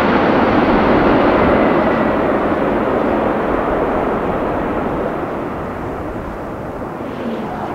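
Jet engine noise from a McDonnell Douglas MD-11F freighter passing low overhead on final approach, gear and flaps down. A steady rushing that is loudest as the jet passes over in the first second or two, then grows duller and quieter as it moves away.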